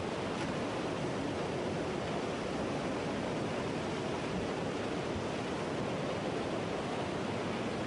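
Steady rushing of tsunami floodwater surging over land, an even wash of water noise with no breaks.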